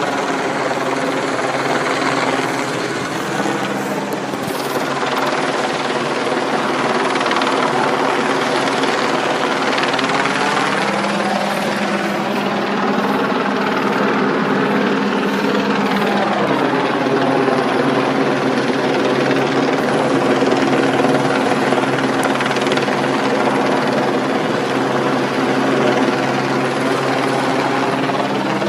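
Helicopter flying low overhead: a loud, steady drone of rotor and engine made of several tones at once, its pitch rising and falling as it moves, most clearly a swell and drop around the middle.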